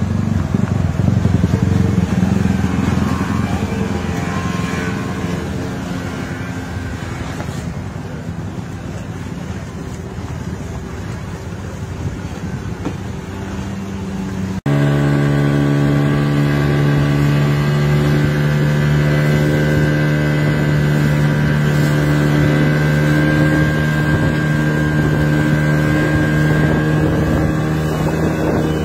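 Motorboat engine running at a steady pitch, heard from aboard with water rushing past and wind on the microphone. Before an abrupt change about halfway, a motorboat engine wavers in pitch.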